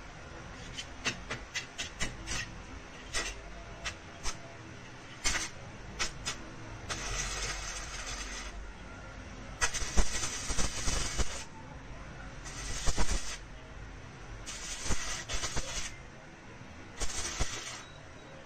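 Stick-welding arc from a repaired Power Craft inverter welder: a run of sharp clicks as the electrode is tapped and scratched to strike, then about five crackling, hissing arc bursts of one to two seconds each, showing the welder now has output.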